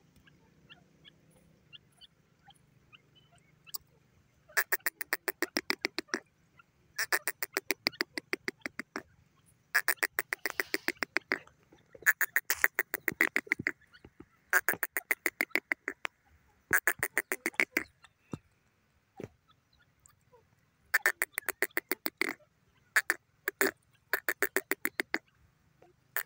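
Grey francolin calling: about nine runs of rapid, sharp, evenly spaced notes, roughly eight a second. Each run lasts one to two seconds, with short pauses between. The calling starts about four seconds in.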